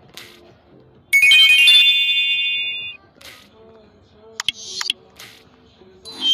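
Nokia N86 ringtone playing: a bright chime of several tones comes in about a second in and rings out, fading by about three seconds. A few quick sharp blips follow about four and a half seconds in.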